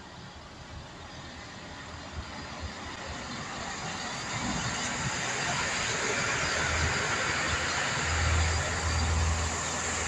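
A train approaching: a steady rumble and rush that grows louder through the first few seconds, then holds. Near the end a low, pulsing engine throb joins it as a Great Western Railway Intercity Express Train draws into the platform.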